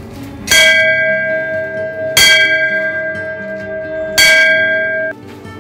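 Hanging temple bell rung by hand three times, about two seconds apart, each stroke ringing on with a clear steady tone; the ringing cuts off suddenly near the end.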